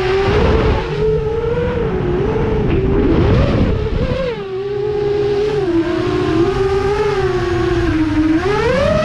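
FPV quadcopter's electric motors and propellers whining, the pitch dipping and rising with the throttle and climbing sharply near the end, over a rushing low noise.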